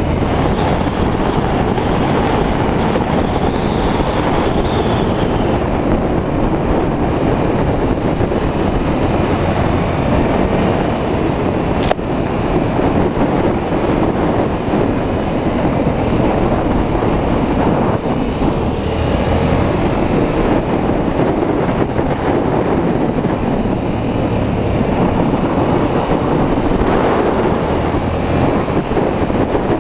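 Heavy wind noise on the microphone of a camera riding on a Yamaha motorcycle at about 40–50 mph, with the bike's engine running steadily underneath. A single sharp click about twelve seconds in.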